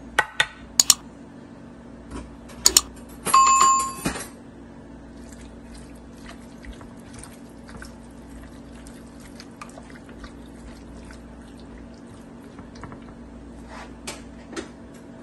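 Kitchen utensils clinking against metal cookware: a few sharp clinks, then a loud ringing clatter of under a second, over a steady low hum, followed by faint scattered ticks.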